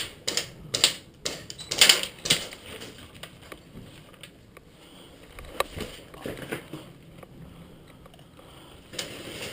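Irregular clicks, knocks and rustling, with a louder cluster of noisy scrapes about two seconds in and a single sharp click near the middle.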